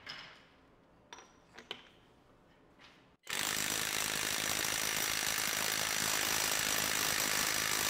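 Milwaukee M18 mid-torque cordless impact wrench hammering on a bolt under load, a steady rapid rattle that starts abruptly about three seconds in, after a few faint clicks.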